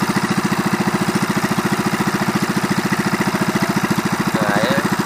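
Small gasoline boat engine running steadily under way, with an even, rapid pulsing exhaust.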